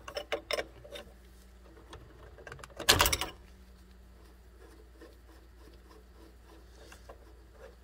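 Metal hand tools clicking and clinking as a brake-line flaring tool and wrench are handled, with a short, louder rattle of clicks about three seconds in, then only faint ticks.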